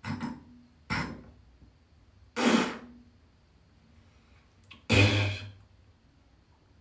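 A man coughing in four short bursts, spaced a second or more apart, the third and fourth the loudest.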